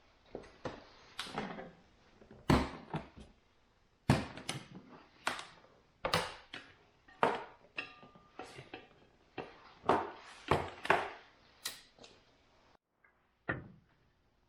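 Irregular clicks, knocks and clatter of hard parts and tools being handled while a portable air compressor is taken apart, with a louder knock every second or two.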